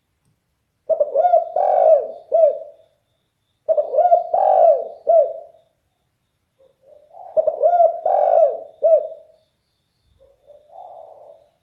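Spotted dove (derkuku) cooing in a deep, very loud voice: three phrases of several rounded coo notes each, a few seconds apart, then a fainter short coo near the end.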